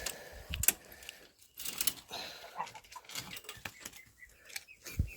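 A string of irregular light clicks and knocks, uneven in spacing.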